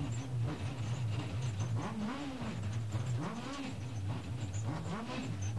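Rally car's engine heard from inside the cockpit at speed, a steady low drone with the revs swelling up and falling back several times.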